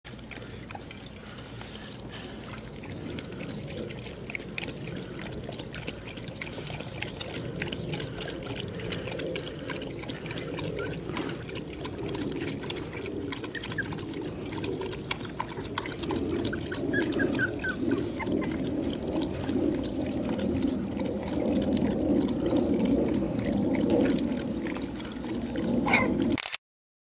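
Boxer puppies and their mother lapping and slurping from a steel bowl, a continuous wet sound that grows gradually louder.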